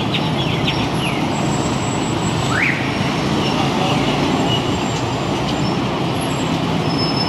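Steady street traffic noise from passing road vehicles, with a few short high chirps in the first second and one brief rising squeak about two and a half seconds in.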